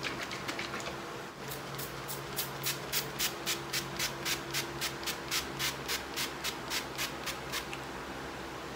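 Quick, even rubbing strokes of hands over skin, about three or four a second for around six seconds, starting about a second and a half in.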